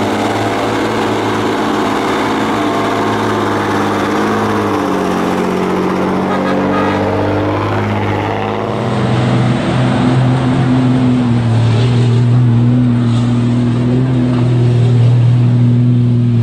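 Heavy diesel log-truck engines running under load, a steady low drone whose pitch sags and climbs again as the truck works. About halfway through, a different truck's engine takes over with a deeper, stronger hum.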